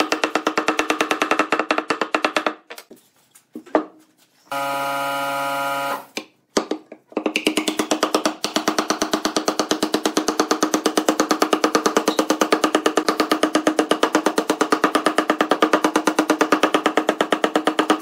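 Small hammer tapping metal strips down into slots cut in a pine block: a fast, even run of ringing taps, several a second. The taps pause after about two and a half seconds, a steady hum sounds for about a second and a half in the middle, and the tapping starts again about seven seconds in.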